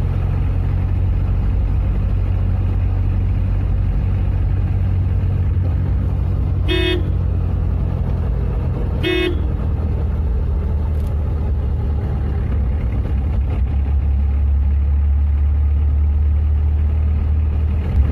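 Car engine running steadily in fifth gear, heard from inside the cabin, with two short toots of the car's horn about seven and nine seconds in, given as a warning to oncoming traffic at a blind curve.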